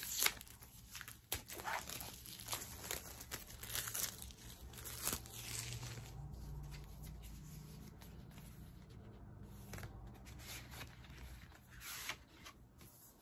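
Crinkling, tearing and rustling of an album's packaging as it is unwrapped and handled: a busy run of sharp crackles for the first six seconds or so, then sparser, quieter rustles as the album is lifted and opened.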